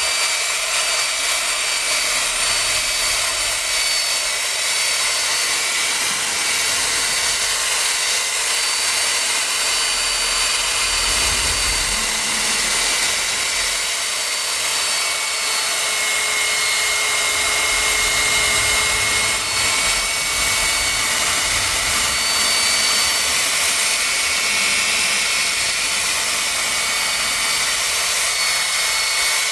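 Handheld electric power tool used to sand or polish paint, its motor running steadily with a high whine whose pitch wavers slightly now and then.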